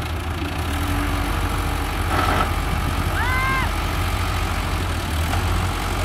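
Bulldozer diesel engine running steadily at idle with a low, pulsing note. A short noisy burst comes about two seconds in, and a brief high tone rises, holds and drops away a little after three seconds.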